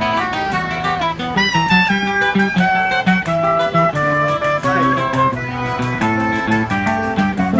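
Choro played by a trio: a clarinet melody over a nylon-string acoustic guitar (violão) and a steady pandeiro rhythm.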